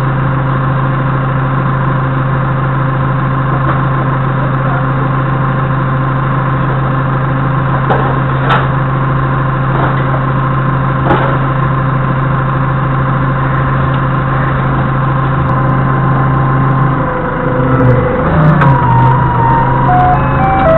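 Doosan 4.5-tonne forklift's engine running steadily at idle, heard from the cab, with a few light knocks. Near the end the sound shifts and a jingly electronic tune comes in.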